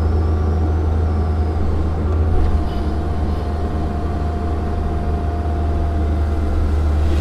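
Cat 305 mini excavator's diesel engine running steadily with a deep, even hum. A thin steady whine joins about two seconds in and fades out near the end.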